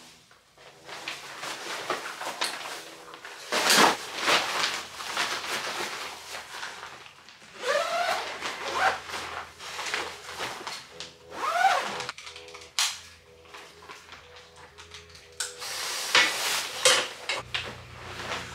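Nylon Normatec compression boots rustling and scraping as they are handled, pulled onto the legs and zipped up, with a few short squeaks. A low steady hum begins near the end.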